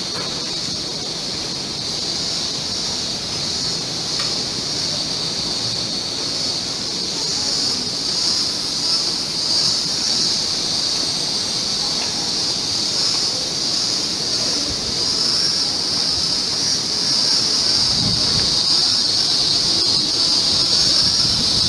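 Cicadas in a steady, high-pitched chorus that grows louder toward the end.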